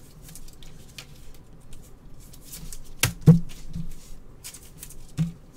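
Trading card packs and cards being handled on a table: light rustling and small ticks, with two sharp clicks about three seconds in and another near the end.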